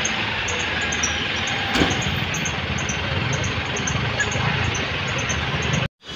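Steady hum of distant town traffic heard over a hillside town, with faint high chirps scattered through it.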